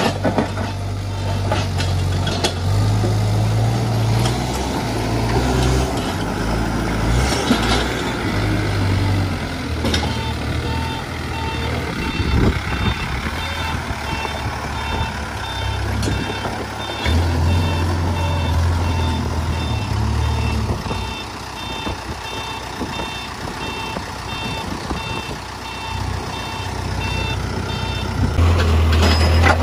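CASE backhoe loader's diesel engine running under varying load, with its reversing alarm beeping steadily from about a third of the way in until near the end.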